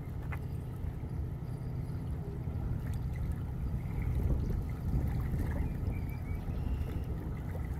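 Wind buffeting the microphone: a low, uneven rumble, with faint water sounds from the river's edge.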